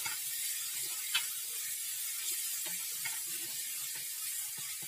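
Ground masala paste of onion, garlic and ginger frying in hot oil in a non-stick kadhai: a steady sizzle, with a wooden spatula scraping and knocking against the pan as the paste is stirred.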